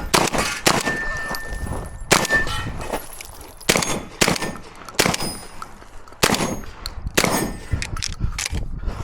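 Tactical shotgun fired repeatedly through a course of fire, sharp shots coming roughly every second or so, mixed with metallic clangs and ringing from hit steel targets.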